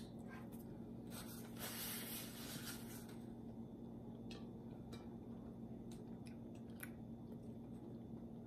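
Faint close-miked mouth sounds of chewing fried chicken: soft wet smacks and small clicks, with a brief soft rustle about a second in, over a steady low hum.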